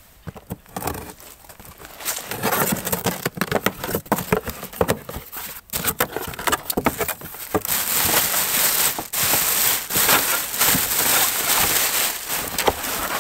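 A cardboard box being opened and unpacked by hand: flaps and molded pulp packing rustling and knocking, then a plastic bag crinkling from about eight seconds in.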